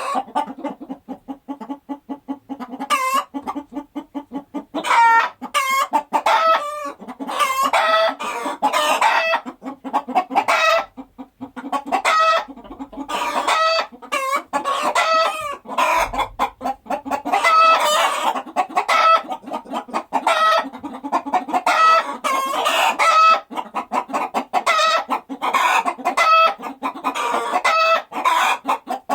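A flock of chickens clucking and calling over one another in quick, repeated short calls, with a steady low droning note underneath.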